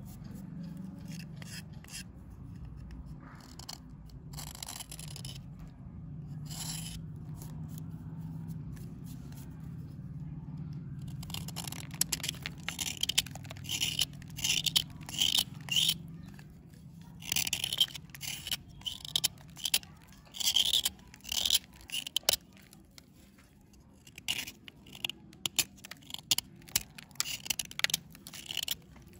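Small steel knife shaving a dry bar of soap: a run of short scraping strokes, sparse at first and coming thick and fast from about halfway through. A low steady hum sits underneath in the first half.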